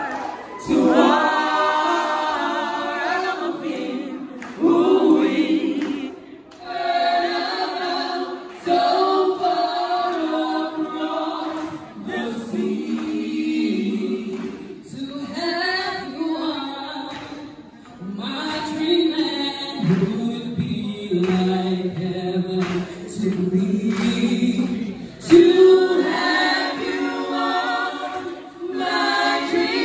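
Music: a group of voices singing a song in harmony, with several abrupt breaks between phrases.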